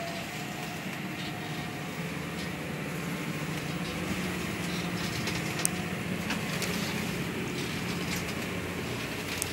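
Pilot boat's engines running steadily, heard inside the wheelhouse, under a constant hiss of wind and sea. A couple of sharp clicks come through, one about halfway and one near the end.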